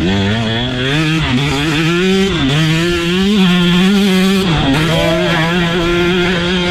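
Two-stroke Husqvarna motocross bike engine running at high revs under the rider's throttle. The pitch climbs, dips briefly and climbs again several times, then holds fairly steady near the end.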